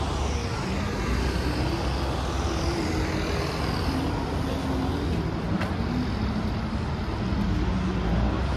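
City street traffic: vehicle engines running and passing, over a steady low rumble.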